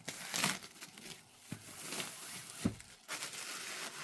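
Fabric being handled and turned over, rustling and brushing, with two soft thumps in the middle.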